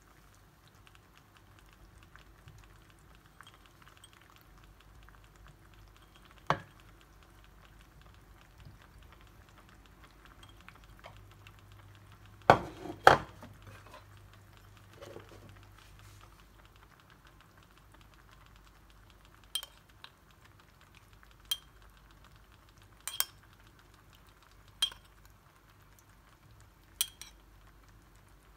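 Metal spoon clinking against a small ceramic bowl while sauce is spooned out, a sharp ringing clink about every two seconds through the second half. A few louder knocks of dishes come near the middle.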